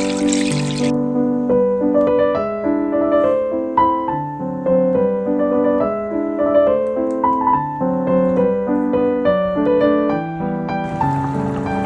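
Background piano music, a gentle melody of single notes over chords. For about the first second, water is pouring into a steel pot of cubed tofu, stopping suddenly; a steady hiss comes in near the end.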